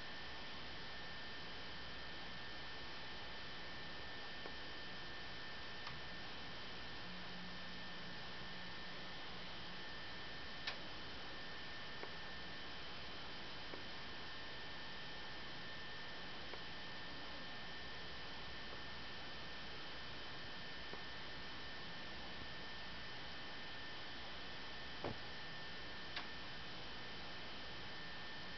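Steady electrical hum and hiss with two thin high tones, broken only by a few faint clicks. No crowd, commentary or horse sounds stand out.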